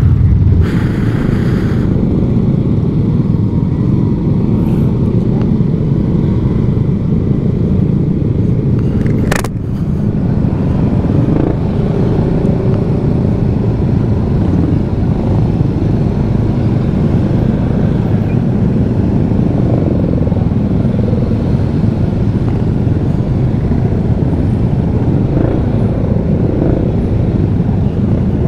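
Steady engine and road noise while riding a Yamaha XMAX scooter at low speed among a crowd of motorcycles, heavy in the low end as wind rumbles on the camera microphone. A single sharp click about nine seconds in.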